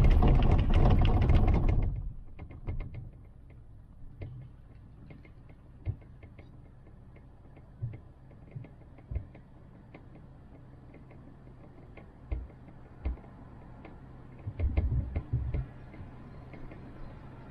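Gondola cable car cabin in motion. A loud rattling rumble in the first two seconds as it passes over a tower's sheaves, then a low steady hum with scattered light ticks and creaks and occasional low thumps, a few bunched together near the end.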